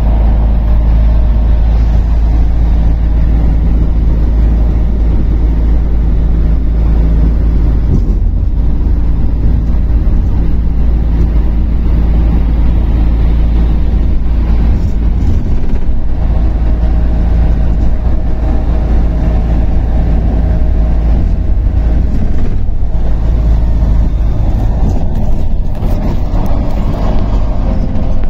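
A bus's engine running steadily at highway speed, heard from inside the cab, with tyre and road noise.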